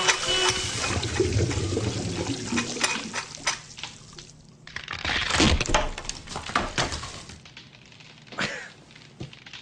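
Water sound effects: water gushing and splashing, with scattered knocks and clunks. It is loudest in the first few seconds, surges again about five to six seconds in, then dies away.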